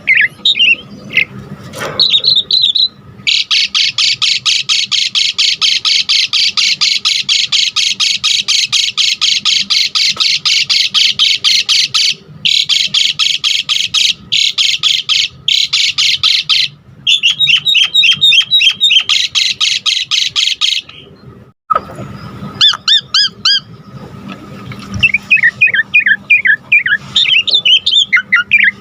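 Asian pied starling (jalak suren) singing loudly: a long run of rapid, evenly repeated harsh chattering notes, several a second, starts about three seconds in and runs to about twenty-one seconds with a few short breaks, followed by varied whistled and chattering phrases.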